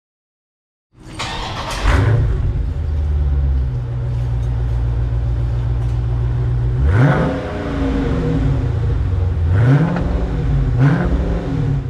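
2020 Dodge Challenger Scat Pack's 392 HEMI V8 on its factory exhaust, before the H-pipe and mid-muffler delete: it starts about a second in with a surge, settles into a steady idle, then is revved three times near the end.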